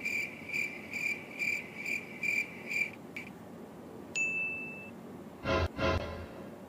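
High chiming beeps repeated about twice a second for the first three seconds, a single short ding a little past four seconds, then two brief pitched sounds near the end.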